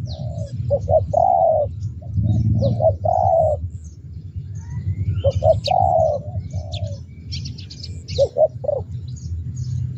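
Spotted dove cooing: three phrases of a few short notes ending in a longer drawn-out coo, and a quick stutter of three notes near the end. Other small birds chirp high and thin over a steady low rumble.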